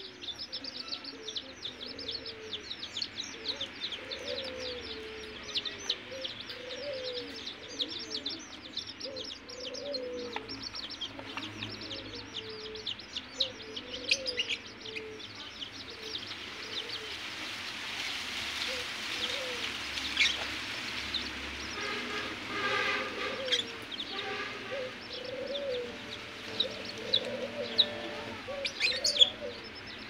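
A flock of young chicks peeping constantly in rapid, high chirps, with lower, softer warbling calls underneath.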